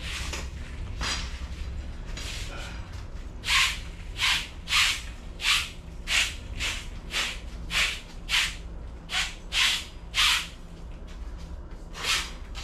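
A long-handled broom sweeping loose wood chips across the floor, a run of short scraping swishes about one every half second or so, with a few fainter strokes before them. A steady low hum runs underneath.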